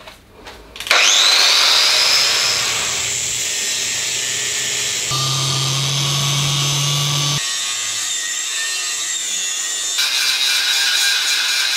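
Angle grinder cutting into the steel frame of a motorcycle. It spins up with a rising whine about a second in, then makes a steady cutting noise whose pitch changes abruptly several times.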